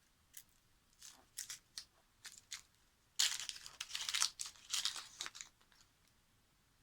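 Dry, papery outer skin being peeled and torn off a red onion by hand. Scattered crackles come first, then a denser run of crinkling and tearing for about two seconds past the middle.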